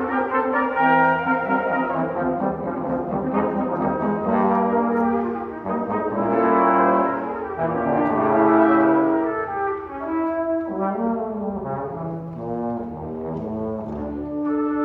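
Brass quintet playing, with trumpet and trombone among the instruments: several brass parts hold overlapping notes in chords while the lines move from note to note.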